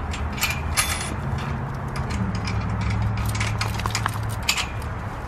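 Scattered metallic clinks and rattles from a chain-link kennel gate and a dog's leash and collar hardware being handled, over a steady low hum.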